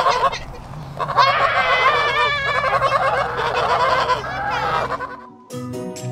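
Several domestic geese honking together in many overlapping calls, busiest in the middle, then dying away; music comes in near the end.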